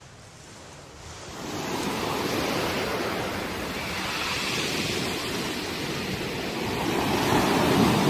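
Sea surf: small waves breaking and washing up a beach, a steady rushing that grows louder about a second and a half in and swells again near the end as a wave breaks.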